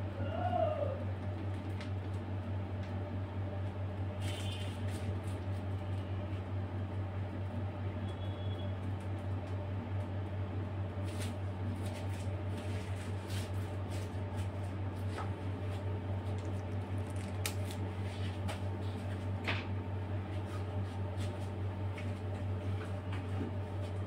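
Steady low hum, like a fan or appliance running in a small room, with a few faint clicks and a brief squeak about half a second in.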